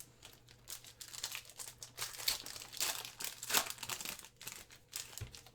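Crinkling and tearing of a Panini Donruss football trading-card pack wrapper being torn open and handled, an irregular run of rustles.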